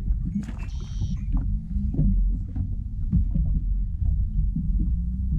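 A splash about half a second in as a largemouth bass is let go over the side of a bass boat, over a steady low rumble. A few short knocks on the deck follow.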